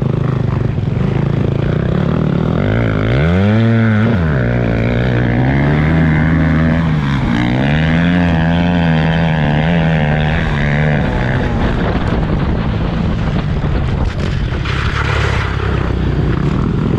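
Motocross bike engines at race pace. The towing bike revs up sharply about three seconds in and drops back. It then holds high revs with the pitch wavering up and down until the sound turns rougher and less clearly pitched after about eleven seconds.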